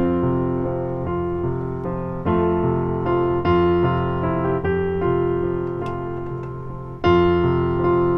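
Background piano music: soft sustained chords, a new one struck about every second.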